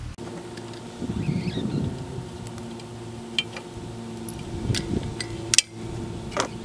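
Tie-down straps and their metal hooks being handled and undone on a hitch-mounted motorcycle carrier: a few sharp clicks and knocks, the loudest about five and a half seconds in, amid rustling.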